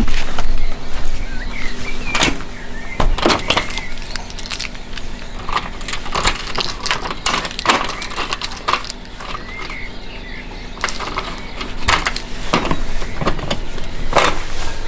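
Irregular knocks and clatters, like things being handled and doors being shut, over a low steady hum, with a few faint chirps about two seconds in and again near ten seconds.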